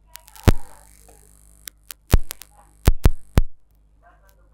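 Five sharp clicks and knocks of tools and wire being handled while a wire is soldered onto a solar panel terminal, the loudest about half a second in. Under them run a steady low hum and a faint high hiss that stops about three and a half seconds in.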